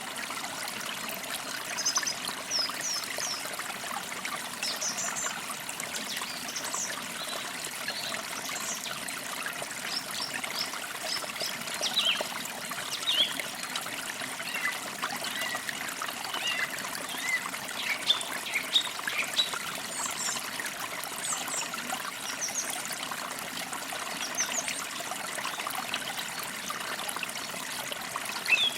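Forest creek trickling and splashing steadily, with small birds chirping in short, quick calls throughout.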